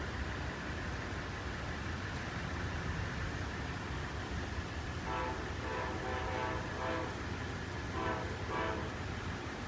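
Amtrak locomotive's multi-chime air horn sounding over the steady rumble of the train. About halfway through comes a longer series of blasts with short breaks, then two short blasts near the end.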